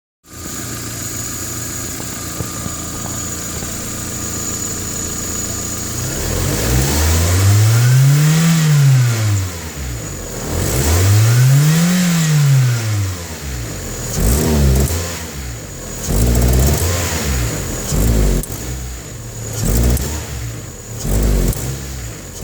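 1995 Geo Prizm's 1.8-litre four-cylinder engine idling steadily for about six seconds, then revved up and back down slowly twice, then blipped quickly about six times. The owner reports the car as hard-starting and stalling out.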